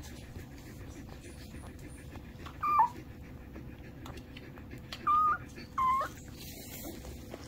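Newborn puppy squeaking: three short, high whimpers, one about three seconds in and two close together a few seconds later.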